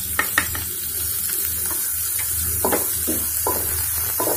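Sliced onion sizzling in hot oil in a non-stick kadhai while a wooden spatula stirs it, with short scrapes of the spatula against the pan, over a steady low hum.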